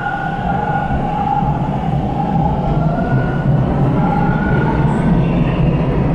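TTC subway train at a station platform, its equipment giving a steady two-note whine over a low rumble that grows a little louder.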